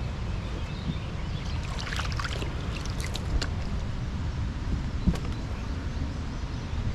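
Water sloshing and splashing around a canoe as it is pushed off and boarded, with a few light knocks and a steady low rumble underneath.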